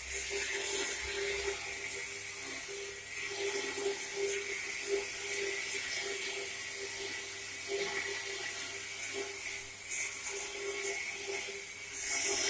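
Electric plate rolling machine running: a steady whine from its motor and chain drive, with the steel sheet scraping as it turns through the rollers into a cylinder. A few light clanks come through, the clearest about five seconds in and near the end.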